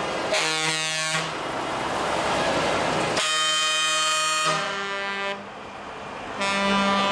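Truck air horns blasting as trucks pull away: a short blast about half a second in and a longer one around three seconds in, with a loud rushing noise between them. Another horn tone starts near the end.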